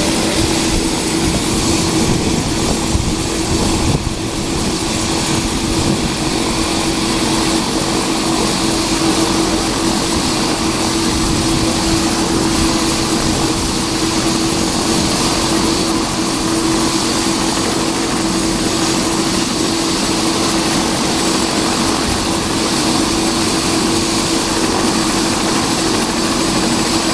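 Turbine helicopter running on the ground with its rotor turning, ready for takeoff: a steady whine over a continuous rushing roar.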